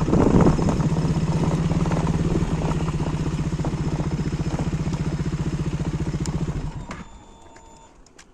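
Motorcycle engine idling with a steady, even pulse, then switched off: it dies away about seven seconds in.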